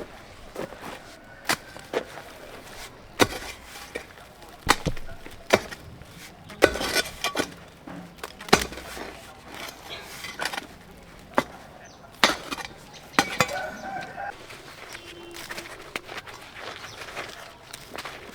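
A series of about a dozen sharp, irregular knocks or chops, spaced roughly a second apart.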